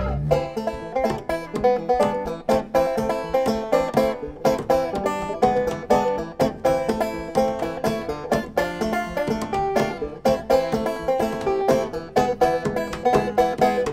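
Instrumental break of a folk-country song between sung verses: quick plucked-string picking over a steady accompaniment, with no singing.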